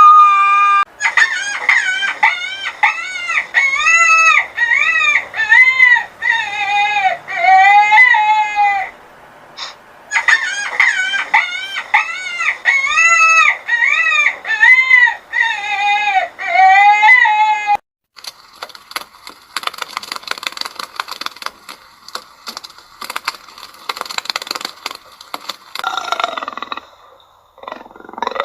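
Chickens calling: loud repeated calls that rise and fall in pitch, about one a second, for the first two-thirds, then a busier, noisier stretch of clucking.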